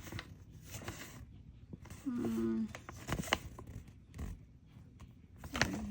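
Small plastic miniature packs and items being handled and opened: scattered clicks and soft crinkling, with a brief hummed or whined sound about two seconds in.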